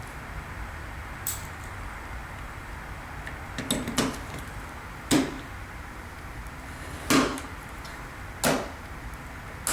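Hand tools being handled: a few sharp clicks and knocks, one to two seconds apart, as parts of a ratcheting box wrench set with interchangeable heads are picked up and set down, over a steady low hiss.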